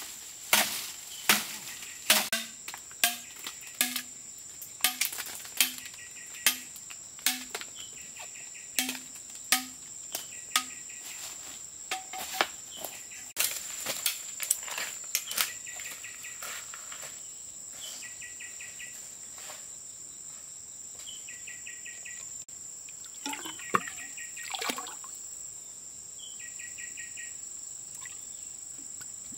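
A run of sharp knocks, a little more than one a second, for about the first fifteen seconds, over a steady high insect drone. After that the drone carries on with short repeated chirping trills, and two more knocks come near the end.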